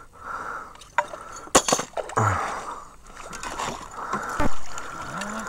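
Water splashing as a hooked fish is drawn alongside a boat and scooped into a landing net, with a few sharp knocks and clicks.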